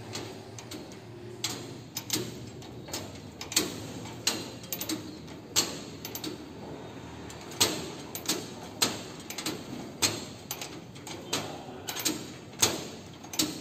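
Sharp metallic clicks and clacks, irregular and roughly one or two a second, from a rice transplanter's seedling-lowering drive linkage and toothed ratchet gear being worked by hand.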